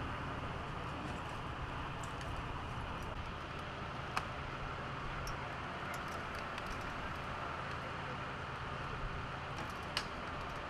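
Steady outdoor scene noise with the low hum of idling vehicles, broken by a sharp click about four seconds in and another near the end.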